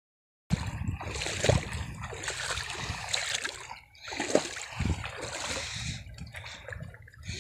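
Shallow water splashing and sloshing as people wade and drag a fine-mesh fishing net through it, starting abruptly about half a second in.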